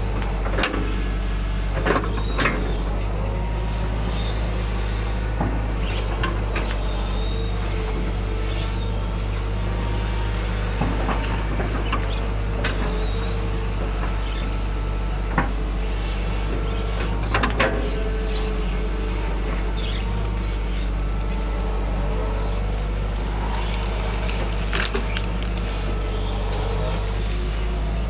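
Excavator's diesel engine running steadily, with a handful of short sharp knocks and clanks scattered through.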